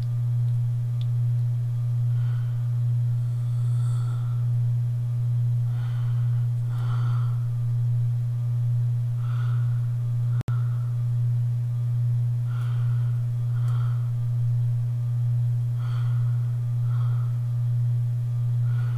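A steady low-pitched hum, one unchanging tone, with faint soft sounds above it; the hum cuts out for an instant about ten seconds in.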